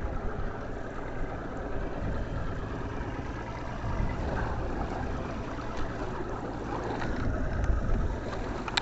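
Fishing boat's motor running steadily at trolling speed, with wind and rough-water noise.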